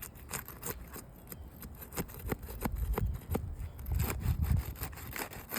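Roof shingle being pried up and worked loose from the shingle below: repeated scraping, rubbing and sharp clicks, with a busier spell of scraping near the end.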